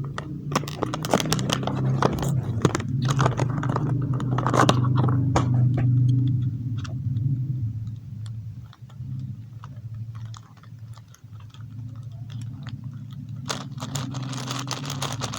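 Unboxing a 5x5 Rubik's cube: crinkling, crunching plastic packaging and box handling for the first several seconds, then sparser clicks. Near the end comes denser clicking, most likely the cube's layers being turned, over a steady low hum.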